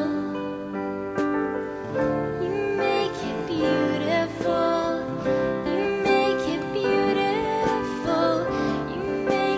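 A young woman singing a slow, tender worship song, with soft keyboard accompaniment holding long sustained chords beneath her voice.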